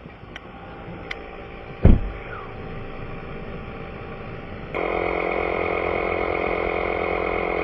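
Vehicle engine idling, heard from inside the cab, with a single thump about two seconds in. About five seconds in a louder steady whirring hum switches on and runs until it cuts off suddenly near the end.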